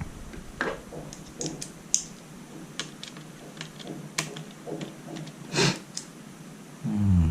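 Scattered small clicks and taps of a screwdriver and hands working at tight screws on a laptop's casing. A short low pitched sound comes near the end.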